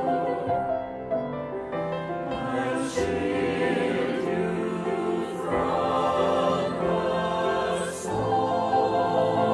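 Mixed choir of men's and women's voices singing an anthem in parts, holding chords that shift every second or so.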